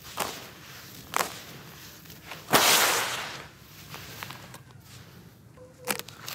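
Hands squeezing and crumbling dry, gritty crumbs of broken blocks in a bowl: short sharp crunches, with one longer, louder gritty rush about two and a half seconds in.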